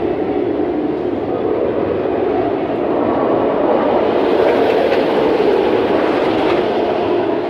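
RailBlazer, a Rocky Mountain Construction single-rail steel roller coaster, with its train running along the track in a steady rumble that gets a little louder about halfway through.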